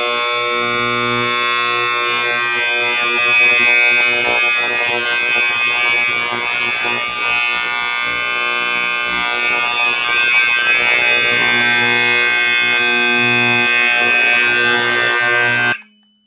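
Federal Signal 350 Vibratone fire alarm horn, stuck on its loudest setting because its volume screw is missing, sounding one steady, extremely loud tone with many overtones. It cuts off suddenly near the end.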